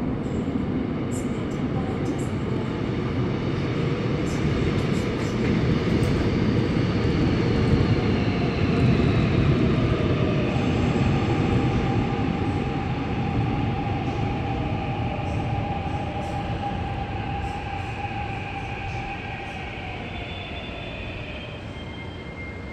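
Seoul Subway Line 6 train entering a station and braking to a stop: a rumble of wheels on rail with a motor whine that falls in pitch as the train slows. The noise is loudest about a third of the way in, then fades as it halts, with brief high-pitched tones near the end.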